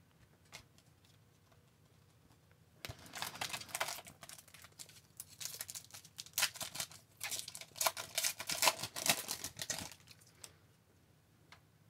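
Hockey card pack wrapper being torn open and crinkled by hand. Irregular crackling rustles start about three seconds in and go on for some seven seconds.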